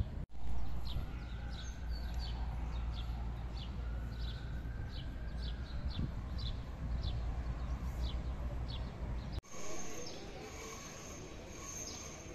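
Small birds chirping repeatedly, one or two short high chirps a second, over a steady low rumble. After a brief cut near the three-quarter mark, the rumble drops away and a different short high call repeats about once a second.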